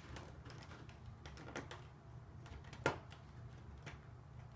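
Lego plastic parts clicking and knocking as a Technic gear assembly is handled and pressed onto a baseplate: a few scattered clicks, the loudest about three seconds in.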